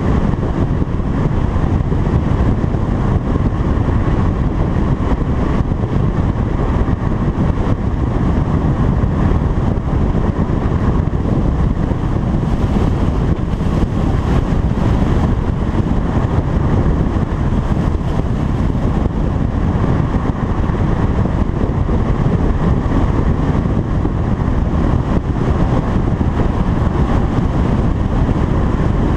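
Steady rush of road and wind noise from a car driving at speed, heard from a camera mounted on the outside of the vehicle, with a heavy low rumble and no distinct engine note.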